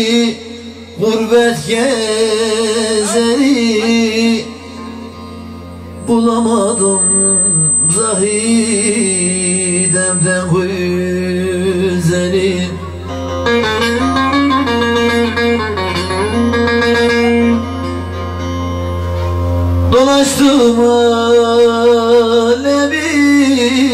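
A man singing through a microphone while playing a long-necked bağlama (saz), the plucked strings sounding along with the voice. A steady low hum runs underneath and stops about twenty seconds in.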